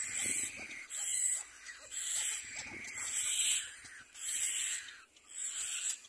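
Little black cormorant chicks begging at the nest: a run of hissy calls, about one every second.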